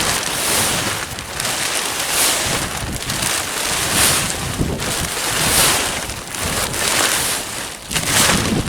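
Old silage sheet plastic being crammed into a fertiliser sack, crackling and rustling in repeated surges about every second.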